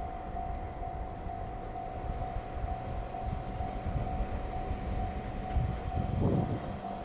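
Niigata Tekko-built AN8800 diesel railcar approaching slowly, its diesel engine and running gear giving a low rumble that grows louder near the end. A thin high electronic tone repeats about twice a second over it.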